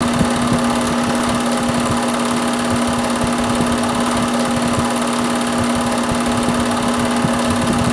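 Film projector running: a steady mechanical clatter of fast, irregular ticks over a constant hum.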